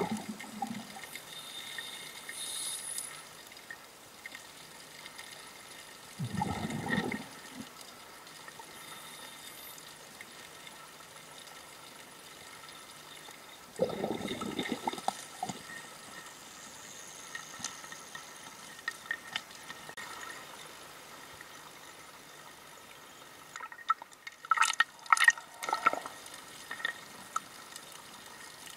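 Muffled underwater ambience with a steady faint hiss, broken by low rumbling bursts of a scuba diver's exhaled bubbles about seven seconds apart. A quick cluster of sharp clicks comes near the end.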